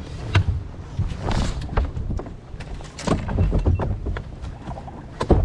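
A boat on the water: a low, uneven rumble with scattered knocks and clunks.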